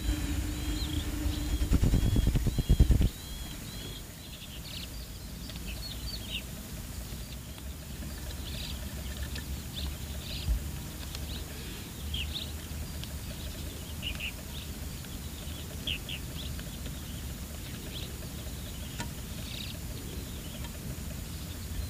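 Small birds chirping in short, scattered calls over a steady low outdoor rumble. For the first three seconds there is a louder low rumble and a quick run of repeated chirps, about two a second.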